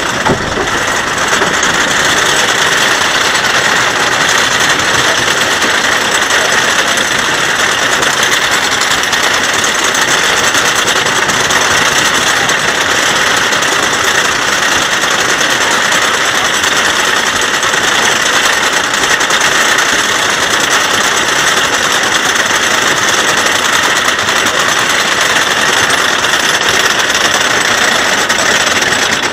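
Lightning Racer wooden roller coaster train being hauled up its chain lift hill: the lift chain and anti-rollback mechanism make a loud, steady mechanical clatter.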